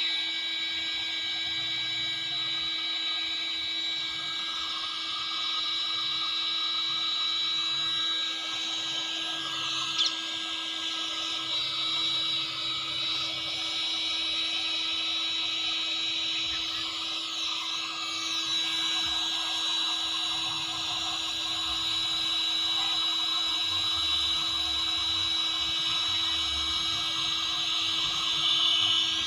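Electric heat gun (hot-air gun) running steadily, its fan blowing with a constant high whine and a low hum while it heats a plastic welding rod. One brief click about ten seconds in.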